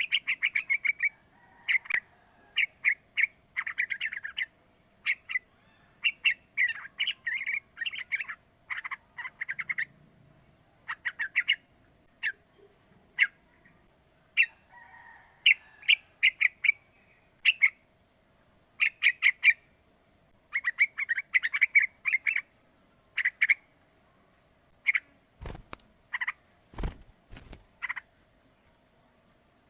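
Young yellow-vented bulbul (trucukan) calling in short bursts of rapid stuttering notes, phrase after phrase with brief pauses between. A few knocks come near the end.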